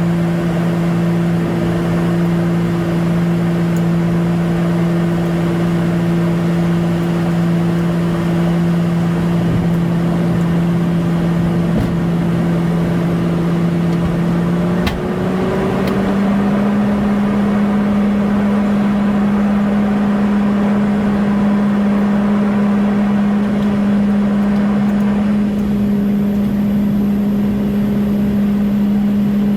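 Airliner engines heard inside the cabin in flight: a loud steady drone over rushing air noise, its low hum stepping up slightly in pitch about halfway through and holding there.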